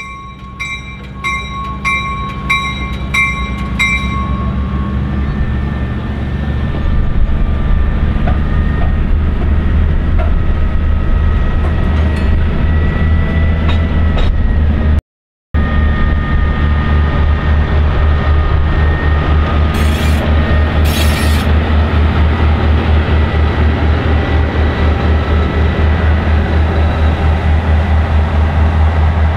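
A GE 65-ton center-cab diesel pushing a short passenger train through a road crossing. Its engine builds up as it nears and then runs loud and steady, with a fast low pulse, as it passes. A bell dings about twice a second for the first four seconds.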